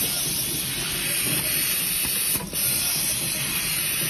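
Desktop automatic screwdriving machine running: a steady mechanical whir with a strong hiss, dipping briefly about two and a half seconds in.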